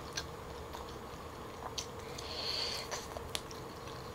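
Quiet eating sounds from a smoked turkey leg: a few soft wet mouth clicks while chewing, with a brief soft squish of meat about two and a half seconds in.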